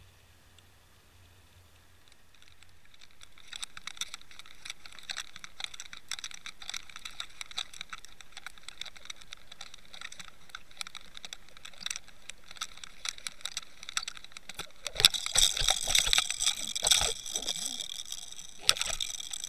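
Underwater camera audio of a trolled lure: faint at first, then an irregular crackle of sharp clicks and ticks. The clicks grow denser and louder for about two seconds near the end, with one loud click just before it ends.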